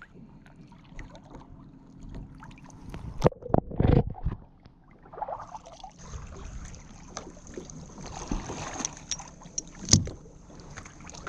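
Plastic kayak being handled in shallow water: water sloshing and splashing with irregular knocks and bumps against the hull, loudest about four seconds in and once more near the end.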